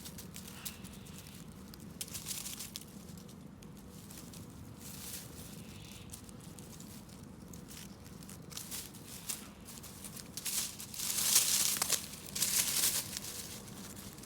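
Crinkling, rustling noises with two louder bursts of rustle near the end.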